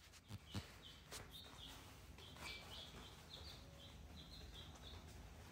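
Faint, short bird chirps repeating about two or three times a second, with a few sharp clicks in the first second or so.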